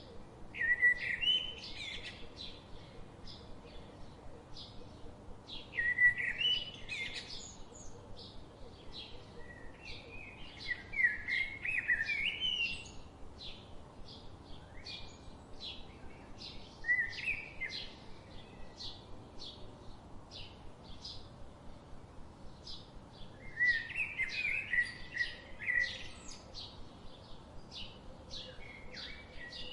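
Woodland birds singing: one bird gives loud song phrases of quick rising and falling notes about every five or six seconds, over a steady run of short, high chirps from other birds.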